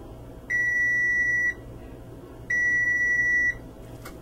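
Electric oven's control panel beeping twice: two long, steady, high beeps about two seconds apart. This is the timer's alert that the countdown has reached zero and the bake is done.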